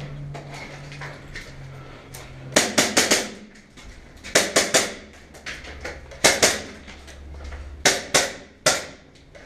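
Airsoft gun firing in short volleys of sharp cracks: a group of four or five shots, then groups of three or four, two or three, and a few spaced single shots near the end.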